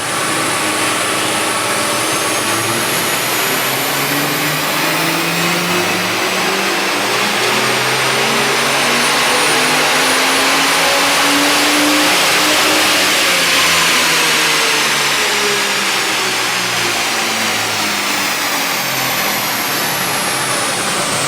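Ford FG Falcon F6's stock turbocharged 4.0-litre straight-six on a chassis dyno, in a full-throttle power run. The engine note climbs steadily in pitch for about twelve seconds, then falls away as the engine winds back down.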